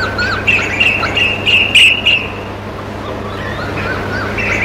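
Recorded peacock (Indian peafowl) calls played through a landline telephone handset: a run of short, high, repeated notes, about three a second, then another run near the end, over a steady low hum.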